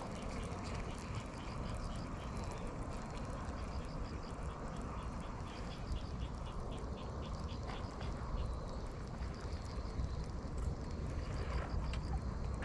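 An animal calling in a long run of short, high notes, several a second, over a low steady rumble like wind on the microphone.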